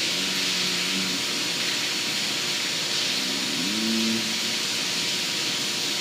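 A steady hiss with a faint hum underneath, and a person's low wordless hum twice: briefly at the start, and again about three and a half seconds in with a rising pitch.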